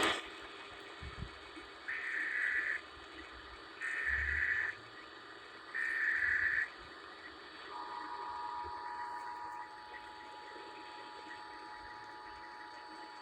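Emergency Alert System test signal. Three short bursts of the warbling SAME header data tone come about two seconds apart. About eight seconds in, the steady two-tone EAS attention signal begins and holds on, dropping in level about two seconds later.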